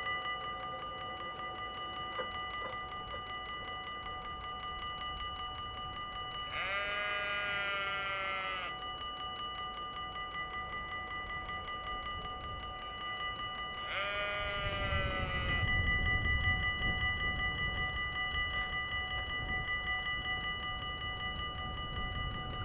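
Level-crossing warning bells ringing rapidly and steadily. A train horn sounds twice, each blast about two seconds long, about seven seconds apart. A low rumble from the passing train follows the second blast.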